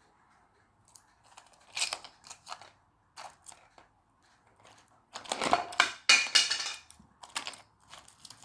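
Handling noise from a small plastic key multi-tool: a few short scrapes and rustles, then a longer, louder scraping stretch about five seconds in that lasts nearly two seconds.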